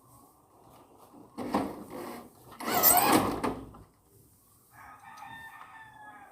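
A rooster crowing, its loudest call with a wavering pitch about two and a half seconds in, followed near the end by a fainter, drawn-out pitched call.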